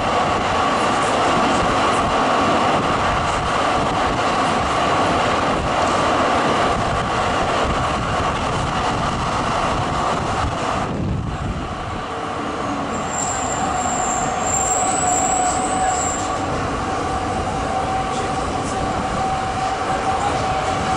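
Zürich tram rolling along its rails, heard through an open window: a steady rush of wheels and running gear with a humming tone. A little past the middle the hiss dips briefly, then a high, thin squeal, typical of wheels on a curve, sounds for a few seconds.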